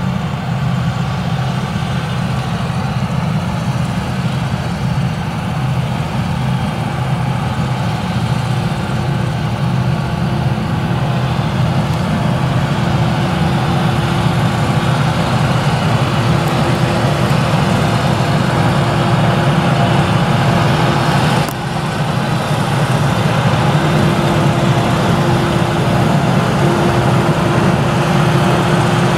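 Claas Jaguar 970 forage harvester's MAN V8 diesel running steadily under load while the machine chops sorghum. A heavy, steady drone carries a faint steady whine above it.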